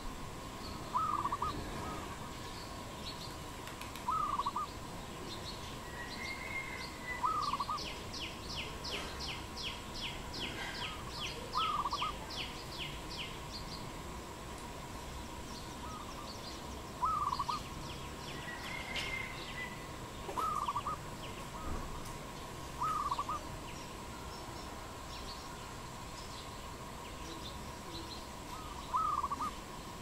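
A dove calling, short cooing phrases repeated every few seconds. Other birds chirp behind it, including a rapid run of high ticking notes lasting several seconds in the first half.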